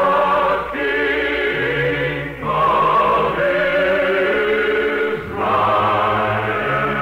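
Choir singing long held chords in three phrases, with short breaks about a second and two and a half seconds in and again near five seconds. The sound is band-limited, as on an old radio recording.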